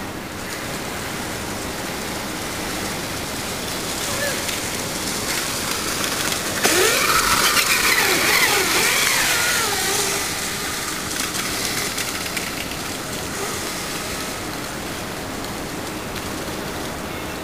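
Electric shopping-cart go-kart passing close on wet pavement: the hiss of its tyres and a wavering motor whine swell suddenly about seven seconds in and fade over the next few seconds, over a steady background hiss.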